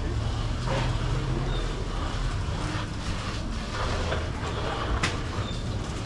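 Low, steady engine rumble of a vehicle running close by, with a sharp click about five seconds in.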